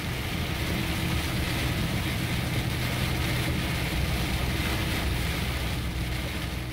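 A truck driving along a road: steady engine hum with continuous tyre and road noise.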